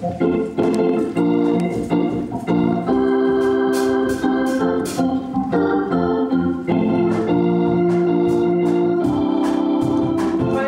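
Organ playing held chords that change every second or so, with a few cymbal strikes from the drum kit in the middle.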